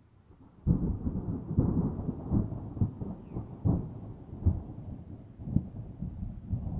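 Thunder: a rolling rumble that breaks in suddenly under a second in, with repeated irregular cracks, and keeps rumbling as it slowly fades.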